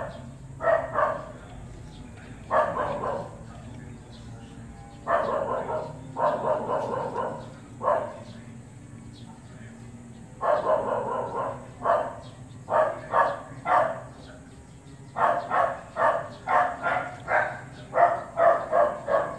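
A dog barking in bouts of short barks, quickening into a fast run of barks near the end.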